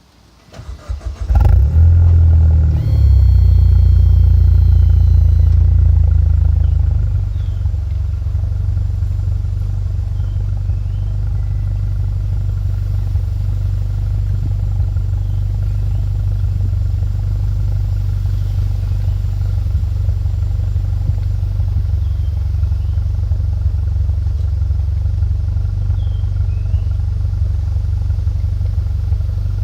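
Mitsubishi Lancer Evolution X's turbocharged four-cylinder engine starting after about a second of cranking, its exhaust running loud at a raised idle for several seconds. About seven seconds in it settles to a lower, steady idle.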